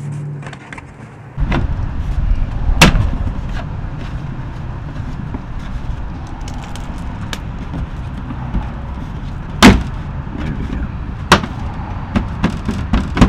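A few sharp clicks and knocks from a screwdriver and hands against the plastic engine under-cover and fender liner as they are tucked in and screwed up, over a steady low rumble.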